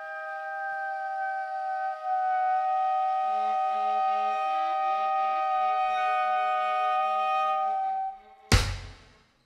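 Free-improvised chamber jazz: saxophones and viola holding long, steady high notes together, with a lower wavering line joining about three seconds in. The held notes stop about eight seconds in, and a single loud drum hit rings out briefly near the end.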